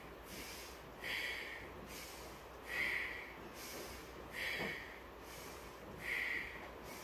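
A woman's short, forceful breaths through the nose, four of them evenly spaced about every 1.7 seconds, paced with a vigorous abdominal exercise of drawing the knees in and extending the legs.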